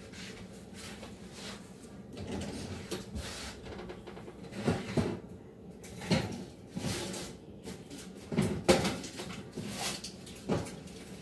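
Kitchen handling clatter: irregular knocks and bangs of an oven door and a metal baking pan as the baked bread pizza is taken out of the oven.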